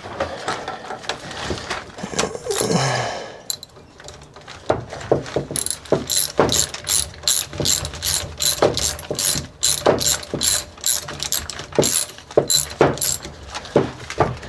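Hand ratchet wrench clicking in a steady rhythm, about two or three clicks a second, as a bolt is run in on the rear shock's lower linkage mount. Before it come a few loose metal knocks and clatter of tools and parts.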